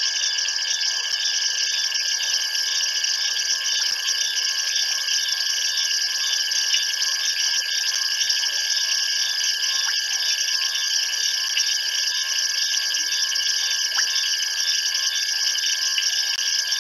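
Dense night chorus of insects: several layers of high, rapid trilling and a steady high-pitched tone, continuous and unchanging.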